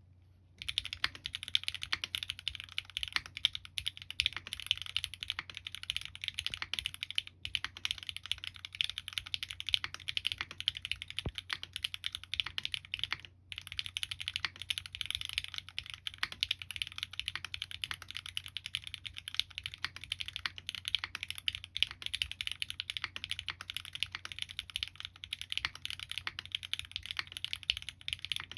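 Fast, continuous typing on a SingaKBD Kohaku mechanical keyboard with lubed Gateron Ink Black V2 linear switches, an aluminium plate and GMK keycaps: a dense stream of keystroke clacks with two brief pauses, about a quarter and about halfway through.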